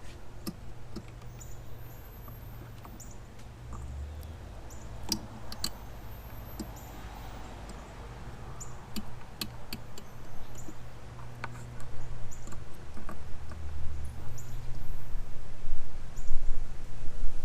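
Scattered clicks and rubbing of hands working an LED bulb and its wire spring clips into a motorcycle headlight housing, growing busier and louder about twelve seconds in, over a steady low hum.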